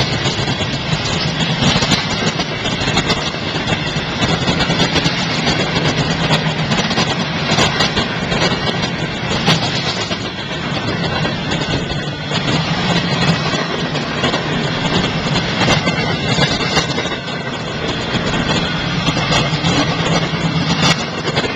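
Cars of a mixed freight train rolling past close by: a steady rumble and rattle of steel wheels on the rails, with occasional sharp clanks.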